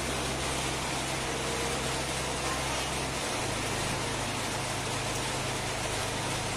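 Steady background hiss with a low hum underneath and no distinct sounds standing out.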